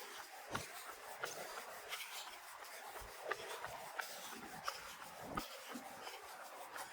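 Footfalls of a runner or walker on pavement, a sharp knock roughly every 0.7 s, over a steady windy hiss.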